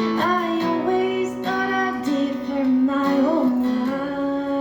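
Live acoustic song: strummed acoustic guitar under a solo voice holding and bending sung notes.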